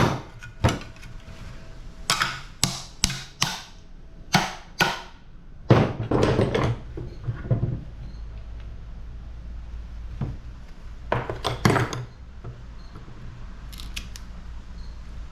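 Hand tools working on a scrap air conditioner: a quick run of sharp metal clicks and knocks, a louder clatter about six seconds in, and another cluster of knocks near twelve seconds. A low steady hum comes in with the clatter and carries on.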